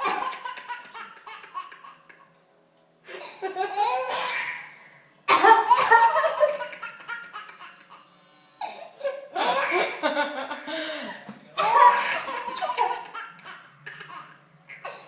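Baby laughing hysterically, in about five bursts of belly laughter with short pauses between them.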